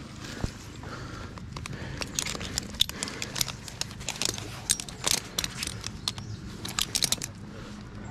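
Metal tree-climbing hardware, carabiners and rope devices on the harness, clinking and jingling as it is handled, in many irregular clicks with some rustling.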